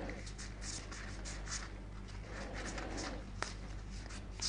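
Game cards being handled and slid against one another: soft, quick rustles and flicks, with a small sharp click about three and a half seconds in.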